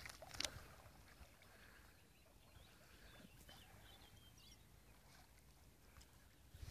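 Near silence by the water: a faint outdoor hush, with a couple of soft clicks at the very start and a few faint, high bird chirps near the middle.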